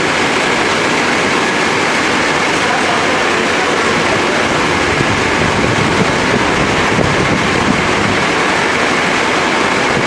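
Steady machinery noise of a peanut butter processing line running in a factory hall, with a faint high whine held throughout.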